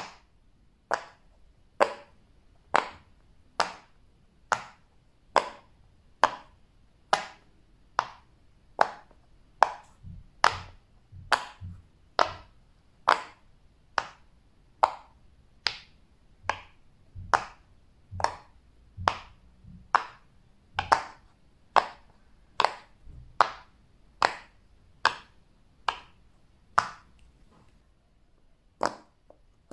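A sharp click repeated about once a second in a steady, even rhythm, some thirty times, from a fidget toy being handled.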